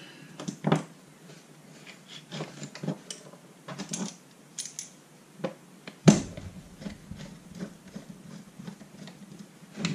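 Metal hand tools and small chainsaw recoil-starter parts handled on a wooden workbench: scattered clicks and clinks, with one sharp knock about six seconds in.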